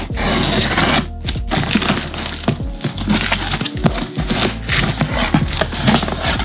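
Background music, with a knife slitting packing tape on a cardboard box and the cardboard crackling and scraping as the flaps are pulled open.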